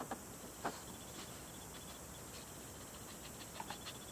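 Faint, scattered clicks and taps of a plastic dog puzzle box (Trixie Poker Box 2) being handled, over quiet room tone. There is one sharper click about two-thirds of a second in and a few small clicks near the end.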